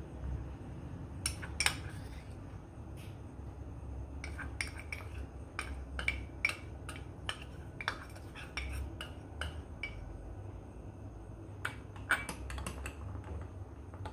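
Metal teaspoon clinking and scraping against a small cup and a glass while custard powder is spooned into cold milk and stirred in: scattered light clicks, busiest through the middle and again near the end, over a low steady hum.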